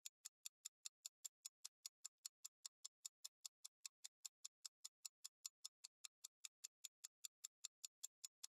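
Faint countdown-timer ticking sound effect: an even click about four times a second, marking the thinking time for a quiz question.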